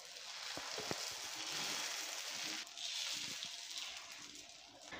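Dosa batter sizzling on a hot, oiled dosa griddle as it is ladled on and spread in circles with the back of a steel ladle, with a few faint ladle taps in the first second. The hiss dips briefly near the middle and fades near the end.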